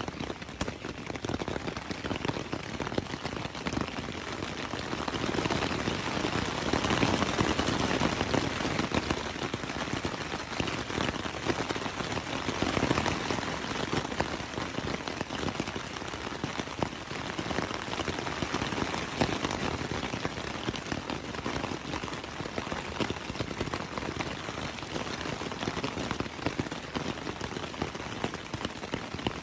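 Rain falling on a tent's fabric, heard from inside the tent: a dense, steady spray of many separate drop hits, heavier for several seconds about a quarter of the way in.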